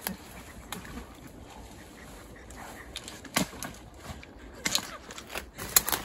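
Twigs and branches of a fallen conifer snapping and rustling as a person pushes through its crown: scattered sharp cracks, coming more often near the end.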